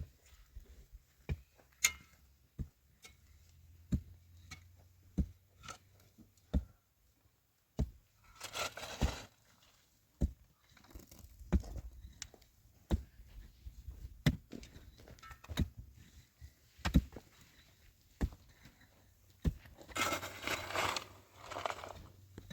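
Sharp knocks and taps, unevenly spaced at roughly one a second, with two longer bouts of scraping, one about a third of the way in and the loudest near the end.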